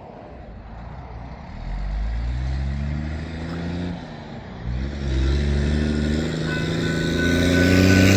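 Diesel locomotives of an approaching Florida East Coast Railway northbound freight train: a low engine drone that grows louder as the train nears. A steady high tone joins near the end.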